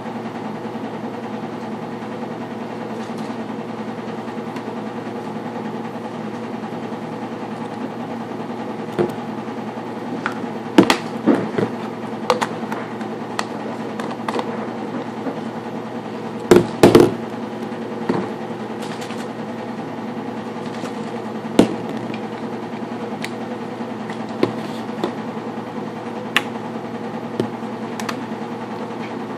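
Plastic baby bottles being handled on a counter: scattered clicks and knocks as caps and bottles are fitted and set down, the loudest a double knock a little past the middle. A steady low appliance-like hum runs underneath.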